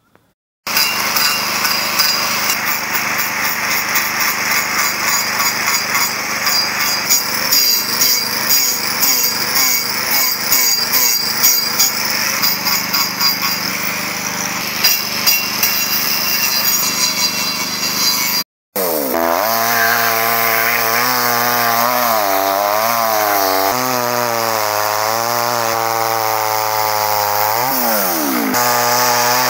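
A handheld power tool with an abrasive disc runs steadily, scouring the wood surface. After a short break about two-thirds through, a petrol chainsaw takes over, its engine pitch rising and falling again and again as it cuts into the wood.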